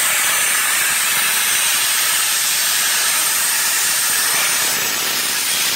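Sandblaster blasting grit from its hand nozzle into the seams and crevices of a car body's bare sheet metal, stripping paint and rust. It makes a loud, steady hiss of compressed air and abrasive.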